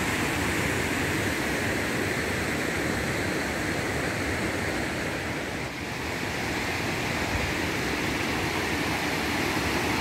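Steady rushing of a mountain stream pouring over rock slides and cascades into pools.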